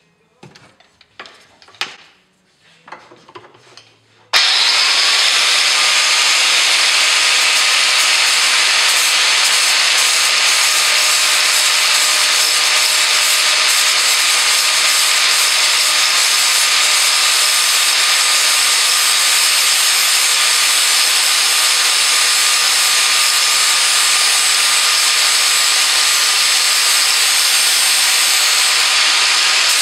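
A few light handling knocks, then about four seconds in an electric angle grinder switches on, spins up and runs steadily, its disc grinding the cutting edge of a steel lawnmower blade.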